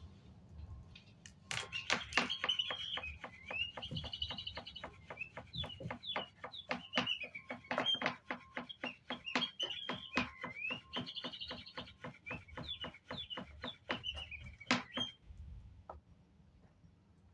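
Electronic bird toy chirping and tweeting over a rapid run of clicks, starting about a second and a half in and stopping near the end.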